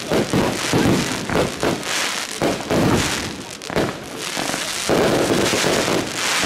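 Fireworks display: aerial shells bursting in quick succession, their bangs and crackles overlapping. About five seconds in it turns into a denser, steady crackle.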